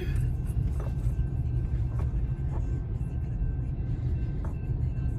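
Freight cars of a Union Pacific train rolling through a grade crossing: a steady low rumble with a few scattered clacks of wheels over the rail joints, heard from inside a stopped car.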